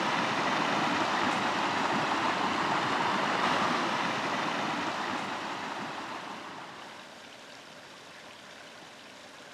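Water of a small stream rushing over rocks, a steady even flow that grows quieter through the second half.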